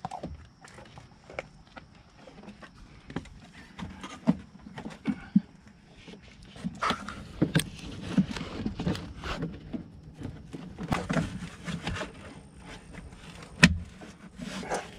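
A SumoSprings insert being pressed by hand onto a van's front coil spring: irregular rubbing and scraping with scattered knocks, busier from about halfway, and one sharp knock near the end.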